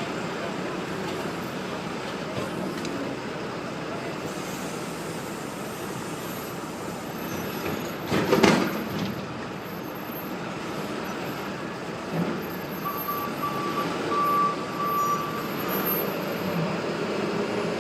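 Backhoe engine running steadily, with one loud clank about halfway through and a few lighter knocks after it.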